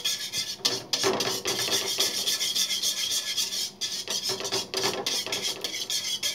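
A wire whisk scraping rapidly round an aluminium kadai, stirring thick white sauce as cheddar melts into it on low heat.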